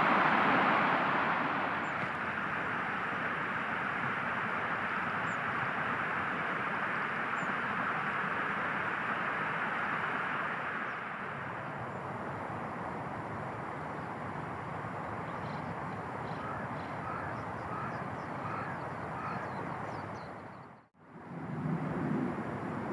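Steady outdoor background noise, somewhat louder at first and easing off about ten seconds in, with a run of short bird calls in the last third. The sound fades out sharply about two seconds before the end, and a new outdoor recording takes over.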